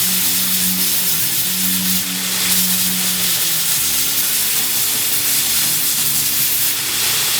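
Belt grinder running a 220-grit belt, sanding and shaping a knife handle: a loud, steady grinding hiss.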